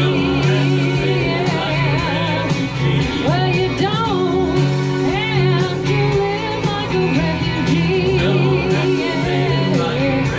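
Live band playing an upbeat pop-rock song with singing, steady bass under a wavering melody line.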